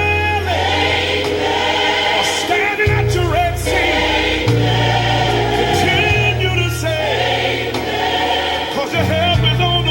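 Gospel choir singing with band accompaniment, over a sustained bass line that moves to a new note every one to three seconds.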